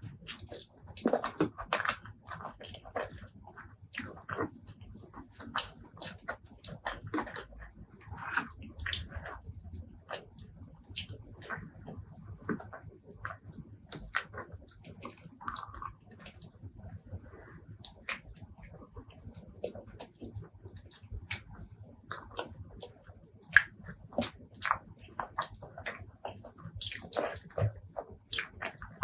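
Close-miked eating: wet chewing and lip smacks, an irregular run of short clicks and squelches, as braised pork leg curry and rice are eaten.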